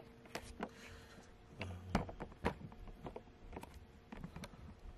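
Handling noise from a handheld camera: scattered light clicks and taps as it is held and adjusted, over a faint steady hum.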